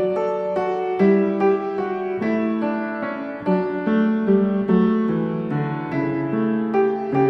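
Background piano music, a steady run of notes with no speech.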